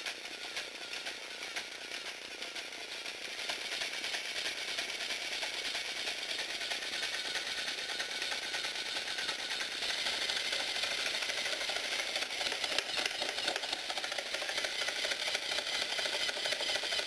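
Motorized Lego Technic snowmobile running: a small electric motor driving plastic gears and a rubber-and-plastic tread, giving a fast, steady plastic clatter. It grows louder about four seconds in and again about ten seconds in.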